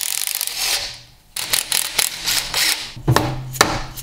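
Cordless impact driver rattling in two spells, with a brief pause between them, as it backs out the bolts holding the rear output shaft housing on a Dana 20 transfer case. Near the end come a few sharp metallic knocks.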